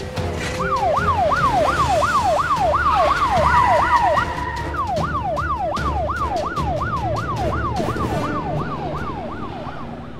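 Police car siren sound effect, a fast wail sweeping up and down about three times a second. It breaks off briefly about four seconds in, then resumes and stops just before the end.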